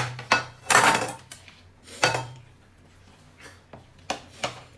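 Dishes and eating utensils clinking and knocking against each other in a run of short clatters, loudest in the first second and again about two seconds in, lighter ones near the end.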